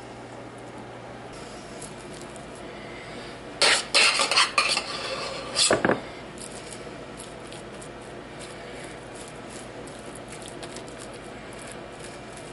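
A spoon scraping and knocking against a stainless steel saucepan as mashed potatoes are scooped out of it, with a loud burst of several clattering strokes lasting about two seconds near the middle and faint light taps afterwards.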